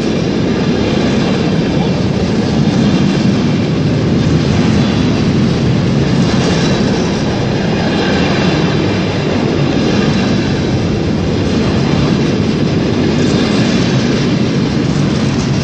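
Long intermodal freight train hauled by two class 90 electric locomotives passing slowly at close range. Its wagons' wheels rumble and clatter steadily over the rail joints.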